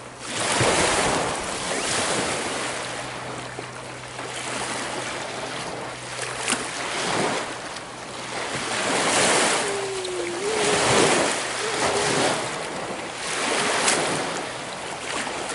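Small lake waves washing onto a stony shore, the noise of water swelling and falling away every couple of seconds.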